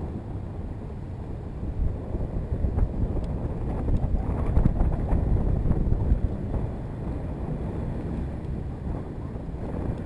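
Wind rumbling on the microphone aboard a moving pedal-drive fishing kayak, with water noise; it grows louder for a few seconds in the middle.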